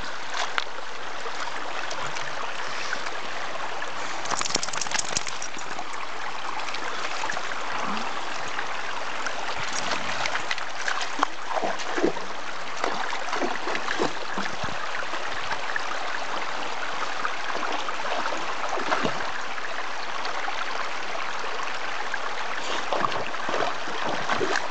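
Shallow creek running steadily over stones, with a dog wading through it and making scattered splashes, most of them in the middle stretch and a few near the end.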